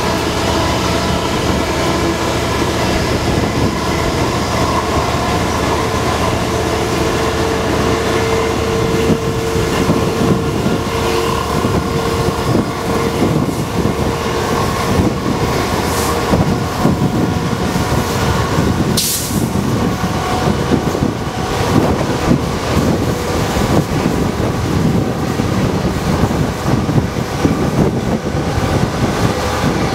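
Class 67 diesel locomotive's V12 two-stroke engine running steadily right beside the window as it propels the train at speed, over a constant rush of wheel-and-rail noise and wind. A held tone sounds for a few seconds early on, the rush grows rougher after the middle, and two sharp cracks come about three seconds apart past the halfway point.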